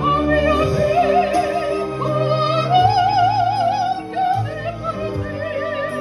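A soprano singing an operatic piece into a handheld microphone, holding long notes with a wide vibrato over a steady low accompaniment.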